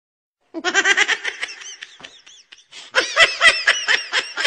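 Baby baboon being tickled, giving rapid, high, laugh-like squealing pulses in two bouts that start about half a second in.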